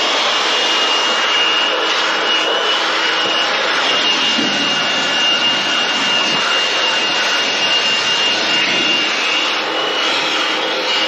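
Handheld leaf blower running steadily at full speed with a high fan whine, blowing old grass clippings and dust out of a zero-turn mower.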